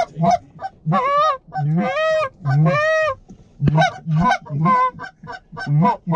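Hand-blown short-reed goose calls honking and clucking: quick two-note honks about three a second, with three longer drawn honks about a second apart in the middle, then quick honks again. A single sharp click comes just before the second run of honks.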